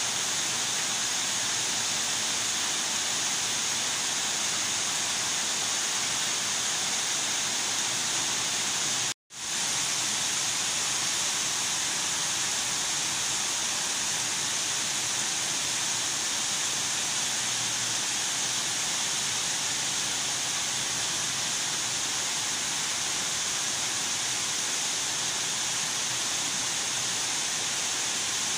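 Heavy rain falling: a steady hiss, broken off for a moment about nine seconds in.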